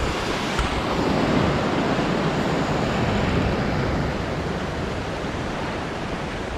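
Sea waves washing in on the shore, swelling over the first second or so and slowly easing off.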